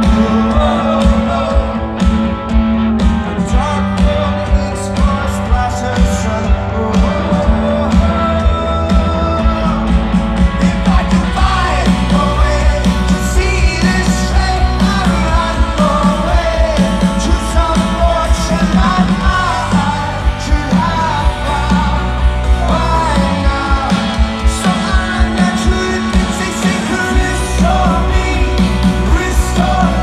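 Rock band playing live through a festival stage PA, heard from within the crowd: drums, bass and electric guitars, with a male lead vocal singing over them.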